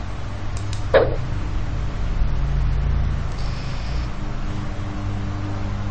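Steady low rumble of background noise, with one short sharp click about a second in.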